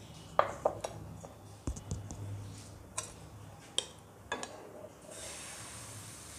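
A few sharp clinks and knocks of kitchen utensils. About five seconds in, a steady sizzle starts as besan batter is ladled onto the hot oiled tawa.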